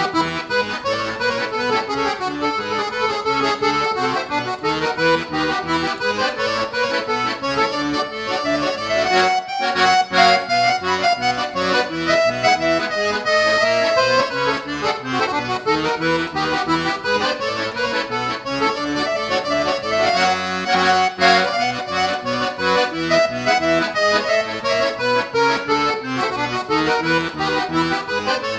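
Piano accordion playing a csárdás: quick runs of treble notes over a steady bass-and-chord accompaniment.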